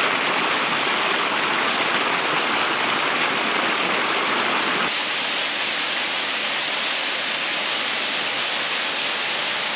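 Waterfall rushing: a loud, steady roar of falling water. About halfway through the deep rumble drops away and a lighter rush of water continues.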